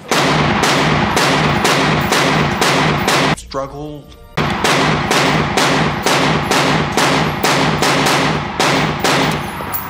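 Smith & Wesson M&P FPC 9mm carbine fired rapidly, about three shots a second, the shots ringing in an indoor range. It stops for about a second near the middle, where a brief line of speech is heard, then goes on again.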